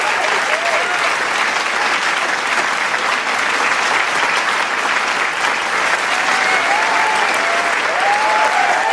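Large crowd clapping steadily in dense applause, with scattered cheers rising over it in the last few seconds.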